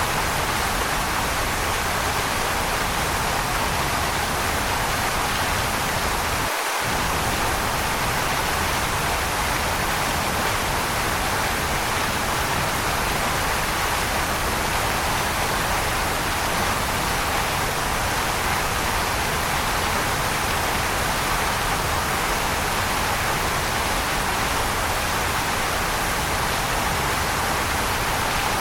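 Waterfall: steady, even rushing of falling water, with no change in level.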